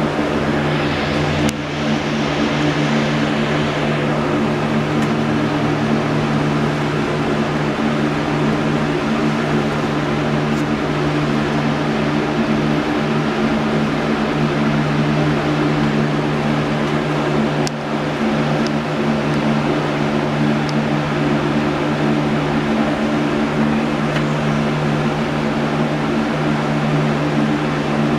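Steady mechanical hum: a constant low drone with a hiss over it, and two brief clicks.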